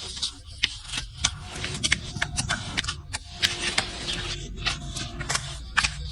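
Farrier's tools cutting hoof horn: a run of irregular crisp snips and scrapes, several a second.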